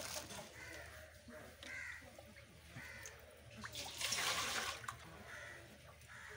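Birds calling in short repeated calls, one every second or so, with a brief splash of water about four seconds in.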